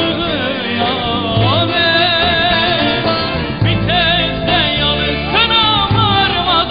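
Turkish Aegean folk music performed live: a man sings an ornamented, wavering melody into a microphone over the band, with low notes pulsing underneath.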